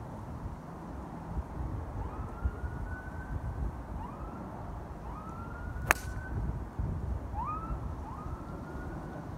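A golf club strikes a ball about six seconds in, a single sharp crack. Behind it, wind rumbles on the microphone and a short rising whistle repeats every second or two.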